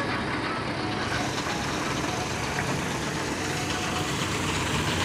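Diesel bus engine running steadily, a low rumble with the general noise of a bus stand around it.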